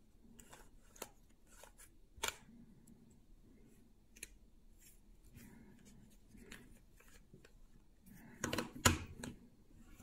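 3x3 puzzle cube being turned by hand: scattered short plastic clicks and rasps as the layers are twisted, with a quick flurry of turns about eight and a half seconds in, the loudest part.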